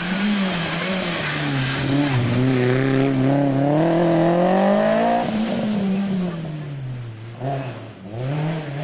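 Rally car engine driven hard on a stage, its pitch climbing under acceleration for a few seconds. About five seconds in the engine note drops sharply and keeps falling as the car goes round the hairpin and away, then climbs again near the end.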